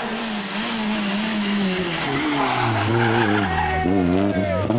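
Rally car's engine coming closer. The pitch falls in steps as the car brakes and shifts down for a tight hairpin, then climbs again near the end as it accelerates out of the bend.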